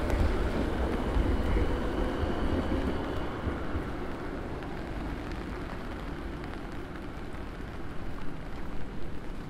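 City traffic on a wet street in the rain: a passing vehicle's low rumble fades away over the first few seconds. After that comes a steady hiss of rain and wet road noise.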